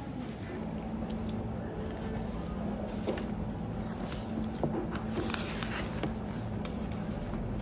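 Pages of a thick textbook being turned and riffled, a papery rustle strongest about five seconds in, with a few light knocks, over a steady low background hum.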